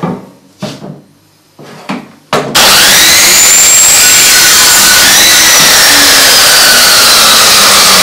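Electric power saw cutting hard old oak. A motor dies away at the start, there are a few short knocks, then about two and a half seconds in the saw starts suddenly and runs loud. Its whine rises, then slowly sags in pitch as the blade works through the wood.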